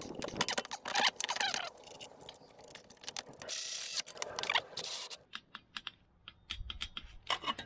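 Hand tools and metal parts clicking and scraping as a turbocharger vane actuator is fitted back onto a diesel V8, dense at first, with a short rasping burst about halfway through, then scattered single clicks.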